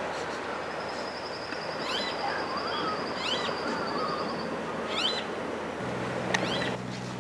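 Wild birds calling over a steady wash of surf: sharp chirps repeated every second or so, and a long high trill partway through. A low steady hum comes in near the end.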